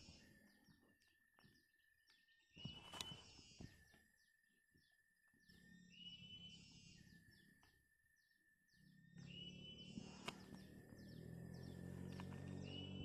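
Faint bird song repeating about every three seconds, each phrase a long steady whistle followed by quick falling notes, with a few sharp clicks from freshwater mussel shells being pried open by hand and knife.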